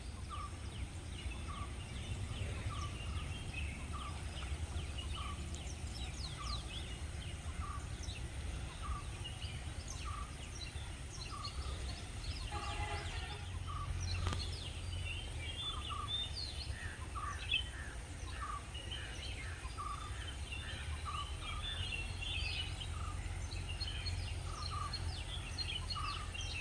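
Outdoor birdsong: one bird repeats a short note about once every 0.8 seconds while other birds chirp higher and less regularly, over a steady low rumble.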